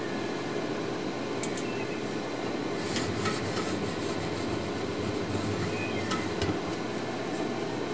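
A metal ruler and marking tool scratching and ticking lightly against a steel ammo can, a few small sharp ticks, over a steady fan-like background hum.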